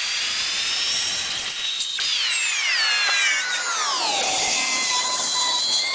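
Track saw cutting wood: a steady high motor whine whose pitch falls between about two and four and a half seconds in, then holds lower.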